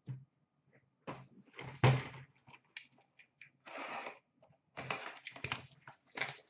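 Trading card boxes and foil packs being handled: short rustling stretches and several knocks, the loudest knock about two seconds in.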